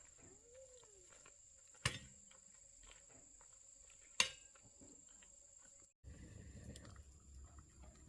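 Two sharp knocks about two seconds apart over a quiet background with a faint steady high-pitched whine.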